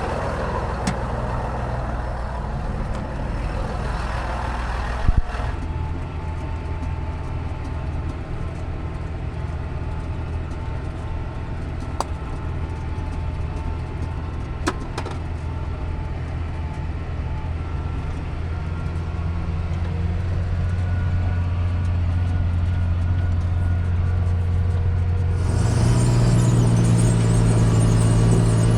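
Large John Deere farm tractor's diesel engine running with a steady low drone. There is a single knock about five seconds in, and near the end the engine note rises and gets louder.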